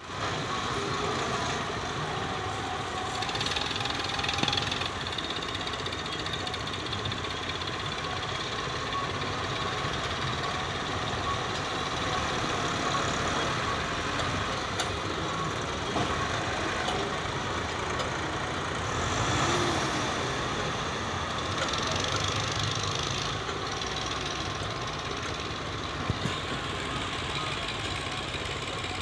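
Diesel engines of Massey Ferguson 375 tractors running under blade work, steady with a few mild swells in level.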